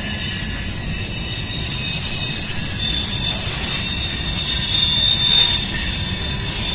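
Freight train of loaded coal hopper cars rolling past, its steel wheels squealing on the rail in several high, steady overlapping tones over a continuous low rumble of wheels on track. The squeal grows stronger in the second half and is loud enough to hurt the ears.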